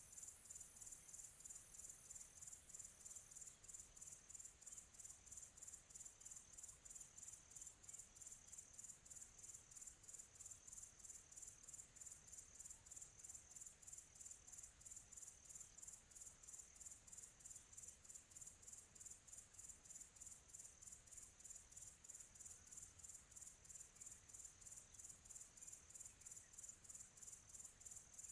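Crickets chirping in a faint, quiet tropical afternoon ambience: a high, even pulsing trill that goes on without a break over a soft background hiss.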